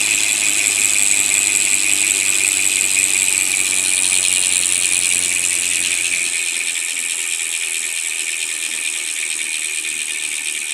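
Ragusa R100 two-pawl rear bicycle hub freewheeling, its freehub ratchet giving a continuous fast clicking buzz as the wheel spins, easing off slightly after about six seconds. A low hum underneath stops about six seconds in.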